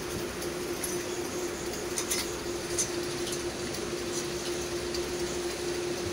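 A steady hum holding one constant low tone over a background hiss, with a few faint light clicks about two to three seconds in.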